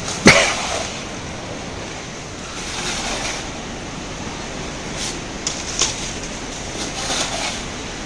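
Steady rushing noise of the flooded Teesta River. A single sharp knock sounds about a third of a second in, and a few lighter knocks follow later.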